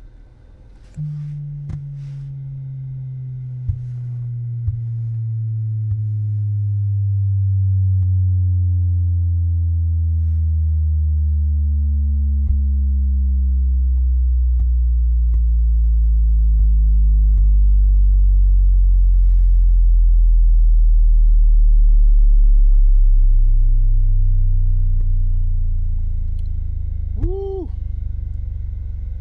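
B2 Audio Rampage 6.5-inch subwoofer in a rear-loaded horn enclosure playing a bass sweep: a steady tone that starts about a second in near 150 Hz and glides slowly down toward 20 Hz. It grows louder as the pitch falls and is loudest in the last third. The sweep is run to find the frequency at which the car cabin peaks.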